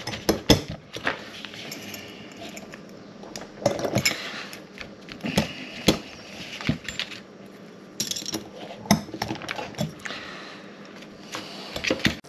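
Irregular metallic clicks and clinks of small steel gun parts being handled as a VZ61 Scorpion's selector switch is worked into the receiver. The switch is hung up on a small lever, so the parts knock and rub without seating.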